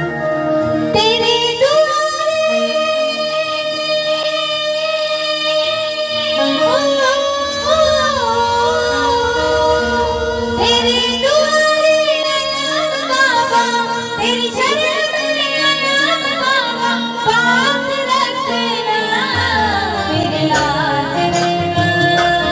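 A woman singing a Hindi devotional bhajan through a microphone and PA, drawing out long held notes with sliding, ornamented turns. Low instrumental accompaniment comes in near the end.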